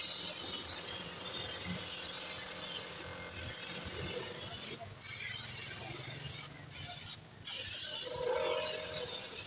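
Compressed-air paint spray gun hissing as it sprays paint onto a tractor wheel rim, cutting out briefly four times as the trigger is let go.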